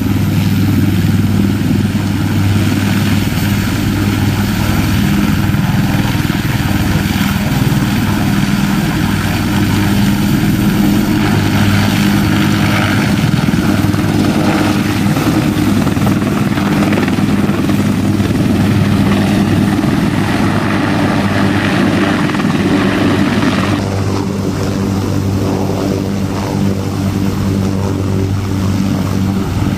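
Marine UH-1Y Venom and AH-1Z Viper helicopters running close by: the steady beat of their four-bladed rotors over the whine of the turbine engines. The sound changes character near the end as the other helicopter takes over.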